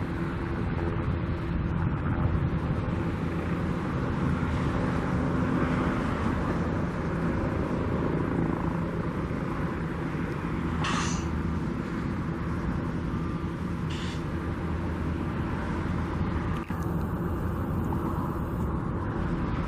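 Steady low engine rumble with a constant hum, like a motor running at idle, broken twice in the middle by a brief hiss.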